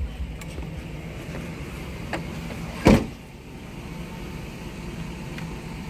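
A vehicle door shutting with one loud thump about three seconds in, after a lighter click, over a steady low hum.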